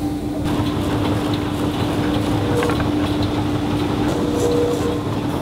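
Industrial wide-belt sanding machine running with a steady hum and low rumble as an end-grain cutting board is fed through on its conveyor belt.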